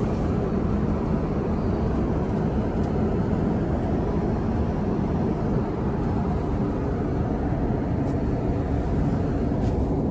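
Steady engine and air noise inside a jet airliner's cabin in cruise flight.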